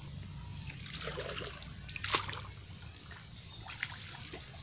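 Small splashes and trickles of shallow muddy water as a man wades and gropes with his hands in the water, feeling in holes for hiding fish, with one sharper splash about two seconds in.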